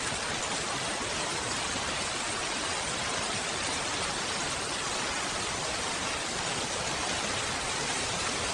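Steady rain, an even hiss with no single drops or other sounds standing out.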